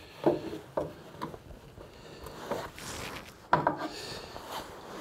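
A one-handed bar clamp being handled and set against the wooden cabinet frame: a series of knocks and clicks, the loudest about three and a half seconds in.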